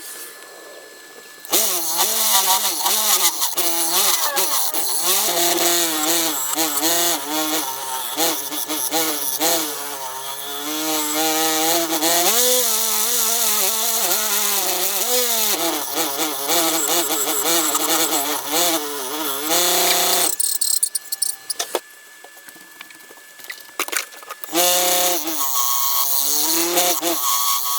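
Mini wood lathe spinning a maple bowl while a tool works the wood: a hissing cut with a pitched squeal that wavers up and down. It drops away twice, leaving a faint steady motor whine.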